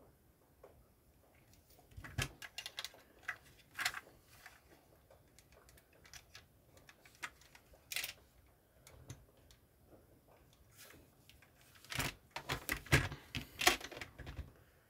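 Plastic LEGO bricks clicking and rattling as they are handled and pressed together, in scattered bursts of sharp clicks that come thickest near the end.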